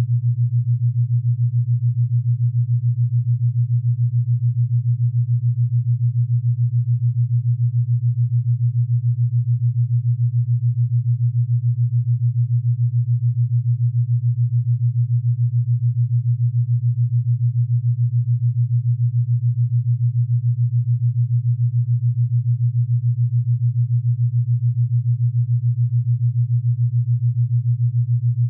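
Steady low-pitched electronic test tone with a fast, even flutter in loudness, unchanging throughout.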